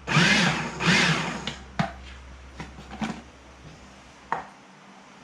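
Food-preparation handling sounds: two short scraping, rustling noises, then a few light knocks spaced out over the following seconds.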